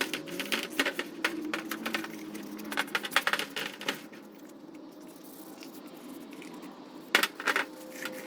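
Small hard parts and hand tools being handled: a quick run of clicks and clattering for the first few seconds, then two sharp knocks about seven seconds in.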